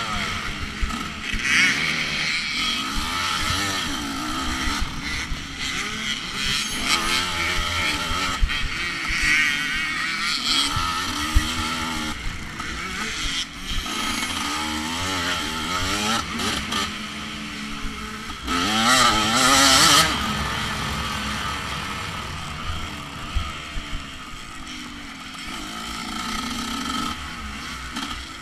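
Off-road dirt bike engine racing through the trail, its pitch rising and falling constantly as the throttle is opened and rolled off and the gears change, over rushing wind and terrain noise. There is a harder, louder burst of throttle about two-thirds of the way through, and a few sharp knocks from bumps.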